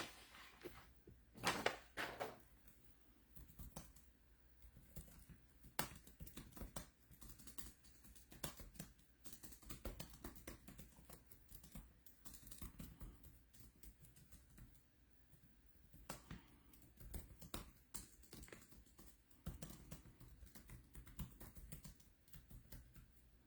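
Faint, irregular keyboard typing and clicks, a few keystrokes at a time with pauses between, against near silence.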